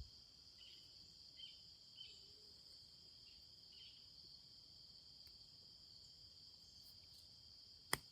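Near silence with faint insects, crickets by their sound, trilling steadily, with soft chirps repeating every half second or so in the first half. A single sharp click just before the end.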